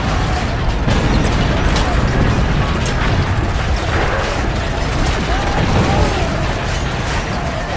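Battle sound-effect mix: a steady, dense din with yelling voices, many short sharp crashes and low booms.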